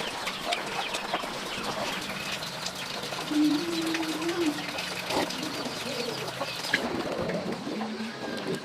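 Chickens and other birds calling, including one held, wavering call about three and a half seconds in, over scattered light clicks and knocks.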